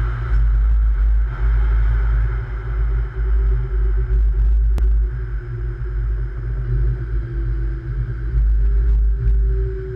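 Light-rail train running along the track, a heavy low rumble with a faint steady whine that sinks a little in pitch and then steps up near the end. One sharp click about five seconds in.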